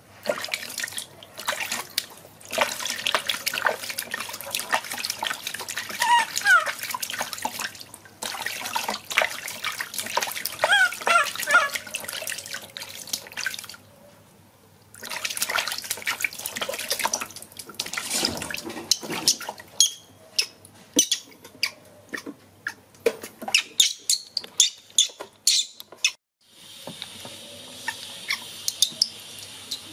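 Water splashing and sloshing in a tub as a baby monkey is dipped and held in its bath, with drips falling back into the water. The splashing stops briefly about halfway through and gives way to a steady hiss near the end.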